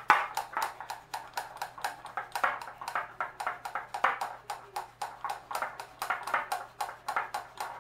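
Parmesan cheese grated on a rasp grater with its tip braced in a glass bowl: a steady run of quick scraping strokes, about three a second.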